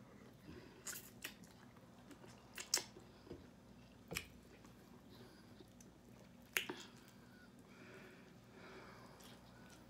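A person chewing barbecued chicken wing close to the microphone, with a few sharp wet mouth smacks and clicks here and there, the loudest near three seconds and six and a half seconds in.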